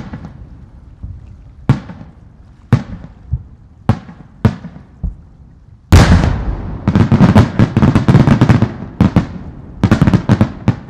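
Aerial firework shells bursting: single sharp bangs about a second apart, then from about six seconds in a rapid barrage of many bursts in quick succession with crackle, which eases briefly and picks up again near the end.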